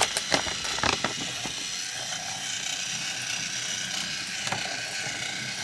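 Battery-powered toy train's small motor and gears running steadily, a mechanical whirr, as it tows boxcars around the track. A few clicks and paper rustles from handling the checklist come in the first second or so.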